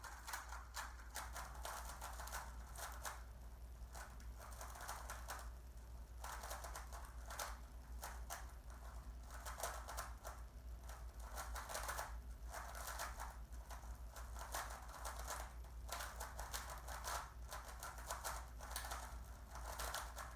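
Rubik's cube being turned fast in a timed speed solve: plastic layers clacking in rapid bursts of turns with short pauses between them.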